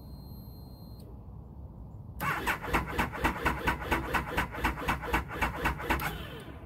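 Motorcycle electric starter cranking the cold engine at 30°F on a lithium iron battery. The engine turns over in even pulses, about five a second, for about four seconds, then the cranking stops without the engine catching.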